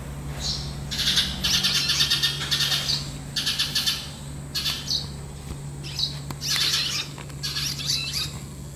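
Red-rumped swallows calling in a series of short bursts of fast, high chatter, several times over.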